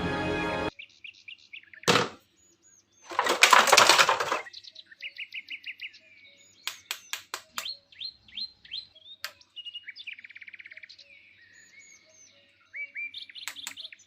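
Small birds chirping and twittering in many short, repeated calls, with a loud burst of noise lasting about a second around three seconds in and a few sharp clicks later. Music cuts off just under a second in.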